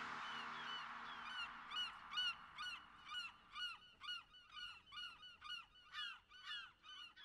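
Faint, rapid series of bird calls, about three short calls a second, while music fades out over the first second or so.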